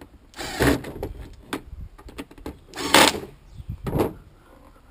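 Plastic parts of a Bissell Powerforce Compact vacuum cleaner being handled and fitted back together: a few short scraping rustles and clicks of plastic, the loudest about three seconds in.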